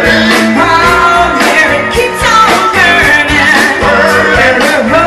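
Live band playing loud through a PA: a woman singing lead over electric guitar and a drum kit, with a steady drum beat.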